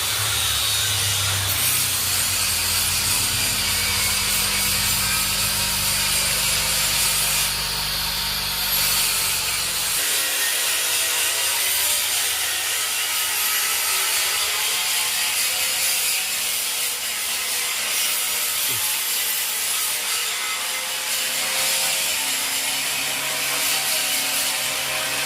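Household electric water-pump motor fitted with a grass-chopper blade, running and chopping grass with a steady hissing, rasping noise. A low hum underneath drops away about ten seconds in.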